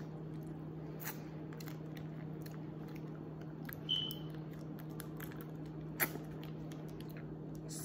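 A plastic duck sauce packet being bitten and pulled at to tear it open: a few faint clicks, a brief high squeak near the middle and a sharper click about six seconds in, over a steady low hum.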